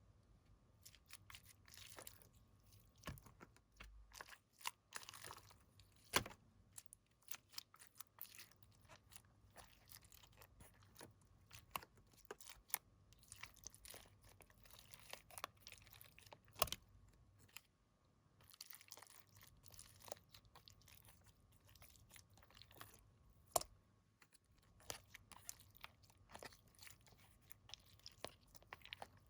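Slime being squished and mixed by hand: a steady run of irregular sticky clicks and crackles, with a few sharper, louder pops.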